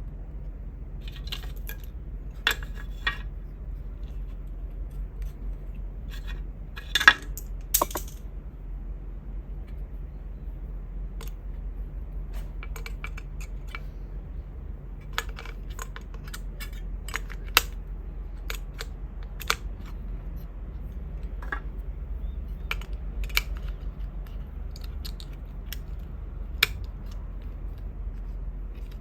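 Scattered small clicks and taps of hard plastic and metal parts and tools being handled while a pocket radio is taken apart by hand. The loudest is a pair of sharp clacks about seven seconds in, over a steady low hum.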